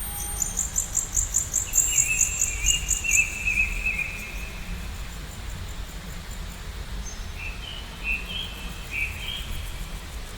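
Birds calling: a fast high trill of about five notes a second in the first few seconds, overlapped by a warbling call, then a few short chirps later on, over a steady low rumble.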